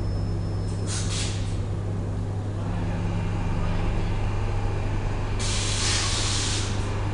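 Metro train pulling into the platform: a steady low hum with two bursts of air hiss from its pneumatics, a short one about a second in and a longer, louder one near the end.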